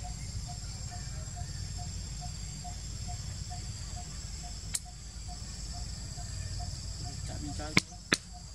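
Outdoor ambience with a steady high-pitched insect drone and a soft note repeated evenly about twice a second over a low rumble. One sharp click comes about halfway through and a few louder sharp clicks come near the end.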